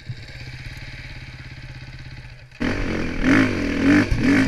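Dirt bike engine idling low and steady. About two and a half seconds in the throttle opens and the engine jumps to a louder note, revving up and down.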